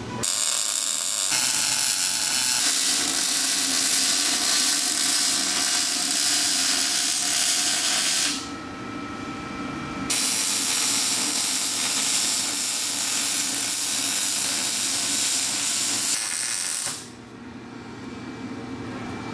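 MIG welder arc welding steel tubing: a steady crackling hiss for about eight seconds, a pause of about two seconds, then a second weld of about seven seconds that stops near the end.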